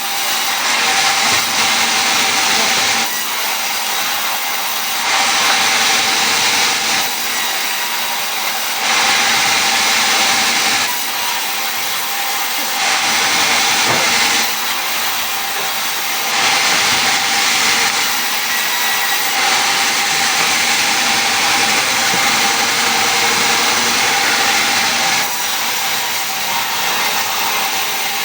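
A power tool running continuously on wood. It grows louder for a couple of seconds about every four seconds, in repeated cutting passes, over a faint steady whine.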